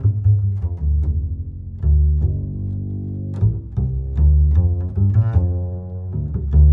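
Background music with a deep bass line of held low notes that change every half second or so, punctuated by sharp hits.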